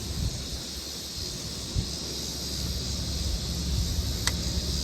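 Steady low rumble of wind on the microphone with a faint hiss, a soft knock about two seconds in and a single sharp click near the end.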